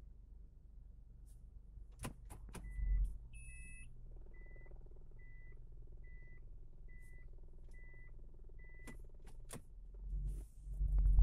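Car's in-cabin reverse warning buzzer beeping at one steady pitch, eight short beeps about 0.8 seconds apart, which signals that reverse gear is engaged. A few sharp clicks come just before the beeps start and just after they stop, over a low steady rumble.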